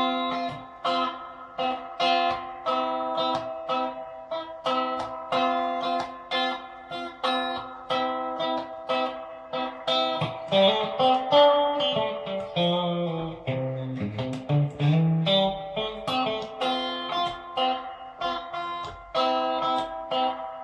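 Fender Player Series Stratocaster electric guitar played with the pickup selector in the in-between bridge-and-middle position: picked chords repeated in a steady rhythm, with a lower single-note run with bent and sliding notes about halfway through before the chords return.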